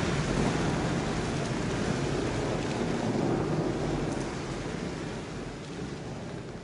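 Recorded rain sound effect, a steady hiss of falling rain, fading out over the last few seconds as the song ends.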